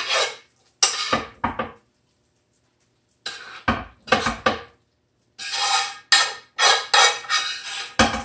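A utensil scraping and knocking against a frying pan as thick chicken pot pie filling is scraped out into a baking dish. Several bursts of scraping and clinks come with short pauses between them, and the busiest stretch is in the second half.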